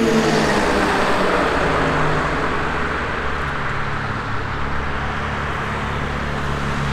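A Hörmann ECN 600 high-mast electronic siren's falling tone dies away just after the start. It leaves a steady rushing traffic noise with a low hum underneath.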